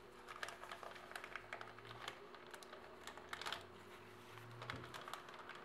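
Faint, quick ticking and crinkling as gloved hands handle a small crumpled scrap, over a faint steady hum.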